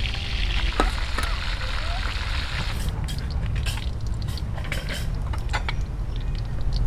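A steady hiss that fades out about three seconds in, then a run of light clinks and knocks of kitchenware, over a steady low rumble.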